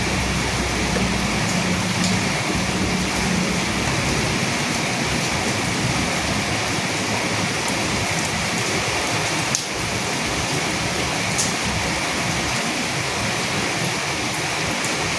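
Steady rain falling, a dense even hiss with a few sharp drip ticks. A low rumble fades out about a second and a half in.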